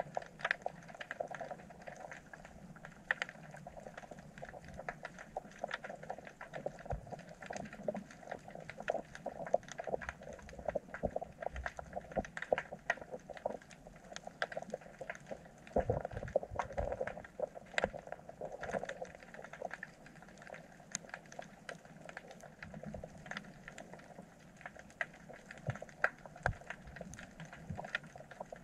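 Underwater ambience from a submerged camera: a dense, irregular crackle of small clicks and ticks over a steady background noise, with a few low knocks about halfway through.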